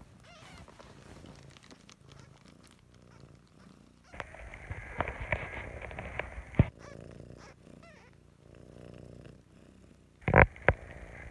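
Russian blue cross mother cat purring close to the microphone, a low pulsing rumble that gets stronger about four seconds in. A few sharp knocks break in, the loudest near the end.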